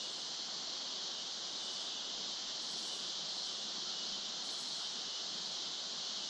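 Steady chorus of insects, a dense high-pitched hiss, twice briefly joined by a higher buzz, about three and four and a half seconds in.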